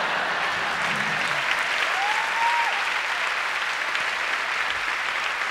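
Theatre audience applauding steadily, with one short rising-and-falling call from the crowd about two seconds in.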